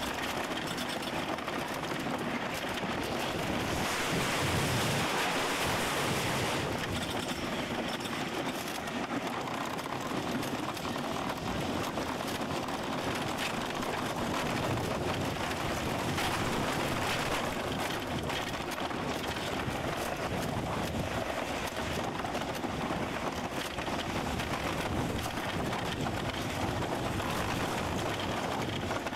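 Philadelphia Toboggan Company wooden roller coaster train running over its wooden track, a steady rumble and clatter of the wheels mixed with wind rushing over the microphone, louder for a couple of seconds about four seconds in.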